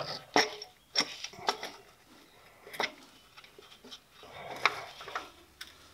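A handful of light metallic clicks and taps as a new serpentine belt tensioner and its bolt are handled and seated against the engine block by a gloved hand.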